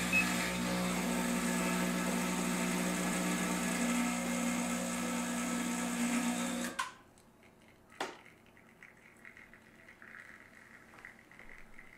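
Rocket Giotto espresso machine's pump humming steadily as an espresso shot is pulled, stopping suddenly about seven seconds in. A faint click follows a second later.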